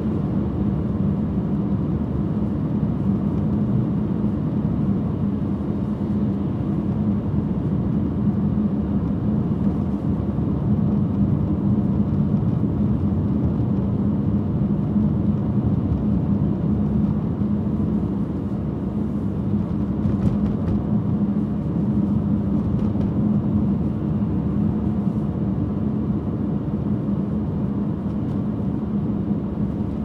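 Car driving at steady speed: continuous engine and tyre noise with a steady low drone.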